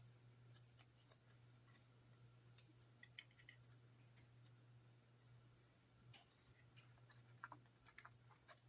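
Near silence: a steady low hum with scattered faint clicks and taps as the plastic model parts and tape are handled.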